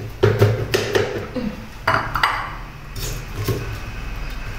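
Peeled coconut-frond stalk pieces knocking against the inside of a metal pressure cooker and against each other as they are packed upright, a string of irregular clunks and taps.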